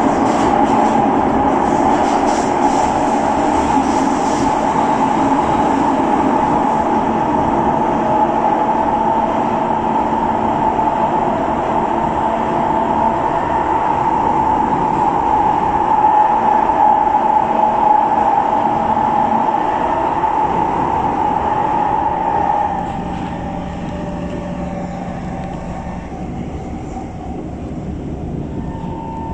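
Inside a Kawasaki Heavy Industries C151 metro train running through a tunnel: a steady rumble of wheels on rail with a whine of steady tones on top. About 22 seconds in it becomes noticeably quieter as the train comes out of the tunnel into the open.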